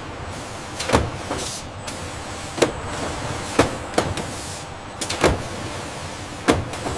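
Packaging-line machinery running with a steady mechanical noise, broken by about six sharp clunks and knocks at irregular intervals.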